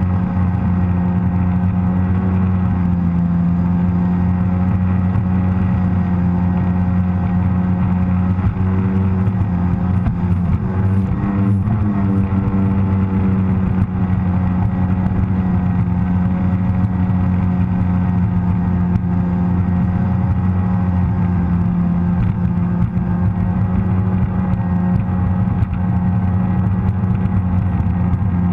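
Sea-Doo personal watercraft's engine and jet drive running steadily at cruising speed, about 30–35 mph, a constant loud drone, with water and wind rushing past. The engine pitch wavers briefly about ten seconds in.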